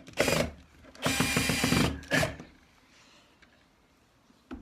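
Cordless drill-driver driving screws into a UPVC window's friction hinge in short bursts: a brief run, then a longer run of about a second, then a short final burst.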